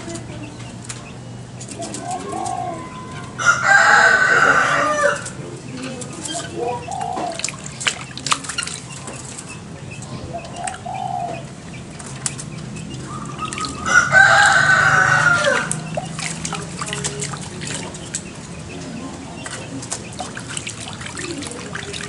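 A rooster crows twice, a few seconds in and again about two-thirds of the way through. Between the crows, water drips and splashes softly as a small bird is hand-washed in a plastic basin.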